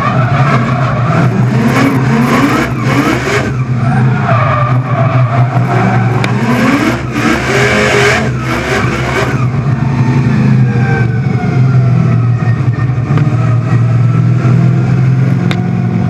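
Supercharged LS2 V8 revving hard in repeated rising pulls, with tyre squeal and skidding, in a drifting Holden VE Commodore. After about nine seconds it settles into steadier running, with a higher whine that slowly rises and falls.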